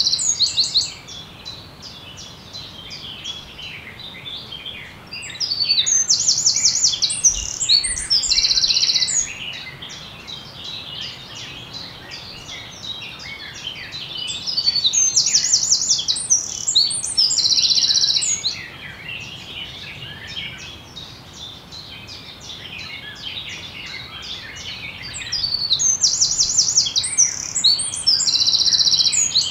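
A chorus of many forest songbirds singing together. One nearby bird stands out, singing a loud song with rapid trills three times, about every ten seconds.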